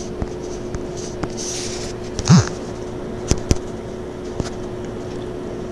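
Room tone with a steady low hum, broken about two seconds in by a brief breathy voice sound from a person, then two light clicks a fraction of a second apart.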